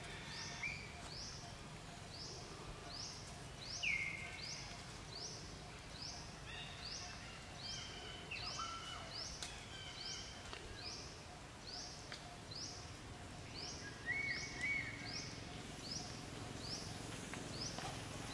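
Forest ambience: a short, high call repeated evenly about one and a half times a second, with a few louder bird whistles here and there over a low steady background.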